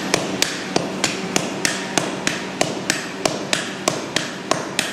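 Two blacksmiths hammering glowing iron on an anvil, a steady run of sharp metal blows about three a second.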